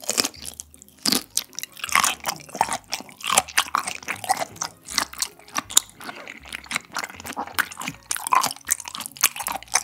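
Close-up chewing of raw shrimp sashimi: a steady run of wet mouth sounds, a chewing stroke every half second or so.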